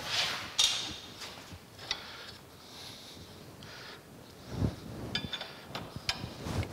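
Scattered light metal clinks and ticks of a hand wrench on the bolt of a metal planer's feed-works linkage, with a duller knock about four and a half seconds in and a quick cluster of clinks just after.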